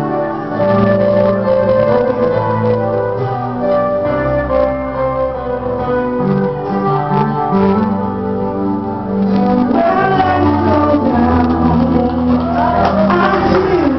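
Live band music: held organ-like keyboard chords over a moving bass line, with a singer's voice coming in about ten seconds in.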